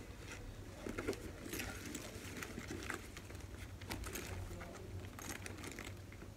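Paper and cloth rustling and crinkling in irregular handfuls as a handbag is unwrapped from its dust bag and tissue paper in a box.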